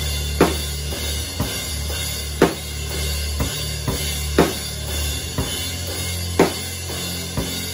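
Gretsch drum kit played in a slow, heavy doom metal groove: a loud hit about every two seconds, with lighter hits and cymbal wash between them.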